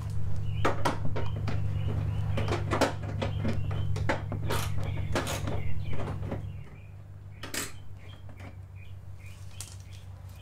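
Quick clicks, snaps and rattles of the black trim piece between a Toyota Prius's headlight and fender being pried and worked by hand and tool, heard over a steady low hum. The hum stops about two-thirds of the way through, after which only one more click is heard.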